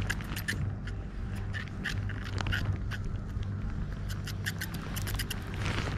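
Irregular clicks and scrapes of hands working a fishing reel's handle, over a steady low hum.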